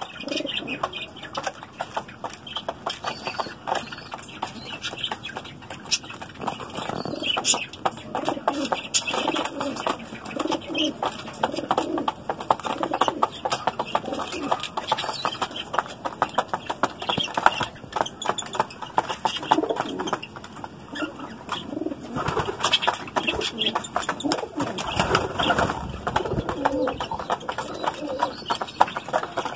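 Domestic pigeons cooing again and again, over a dense patter of short clicks from beaks pecking grain out of a plastic feed tray.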